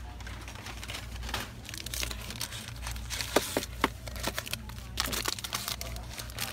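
Plastic protein-bar wrappers crinkling and rustling as bars are grabbed from a shelf display and handled, with a few sharper crackles about three and a half seconds in. A steady low hum runs underneath.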